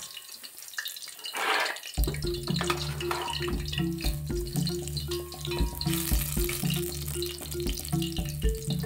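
Vegetables frying in oil in an aluminium pot over a charcoal stove, a steady sizzle with a wooden spoon stirring and tapping. Background music with a steady beat comes in about two seconds in.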